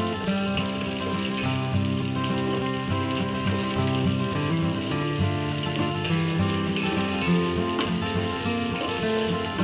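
Food frying in hot oil in a pan, with a steady sizzle, under background music.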